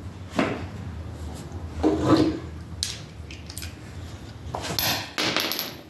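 Hand tools working on a small engine while the spark plug is taken out: a few sharp clicks and knocks, then a scraping, rasping rub near the end.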